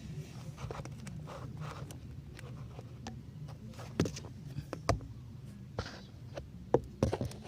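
Hyundai Eon's engine running steadily, with a few sharp clicks and knocks around four, five and seven seconds in.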